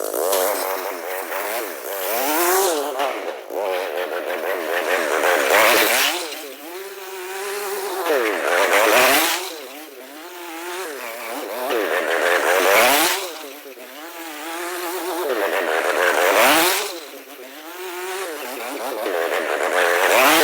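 Small 120 youth snowmobile engine revving up and easing off over and over, about once every four seconds, its pitch wavering, as it is ridden back and forth over a jump.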